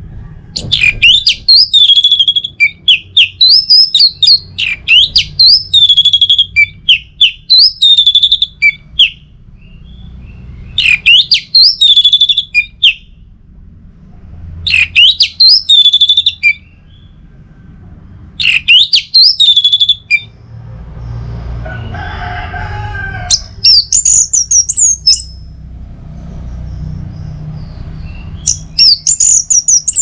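Orange-headed thrush singing loudly, in repeated bursts of quick, varied whistled phrases with short pauses between them, and higher, thinner notes in the later bursts. For a few seconds past the middle a lower, hoarser sound comes up in the background.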